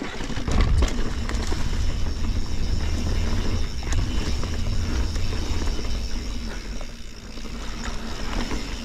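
Mountain bike riding down over a rock roll on a trail: tyres rolling and knocking on rock and dirt, with a rattle of chain and drivetrain and a constant low rumble.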